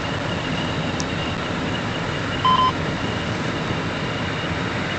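Steady engine and tyre noise inside an SUV's cabin driving on a wet dirt road, with a short electronic beep at the start and another about two and a half seconds in.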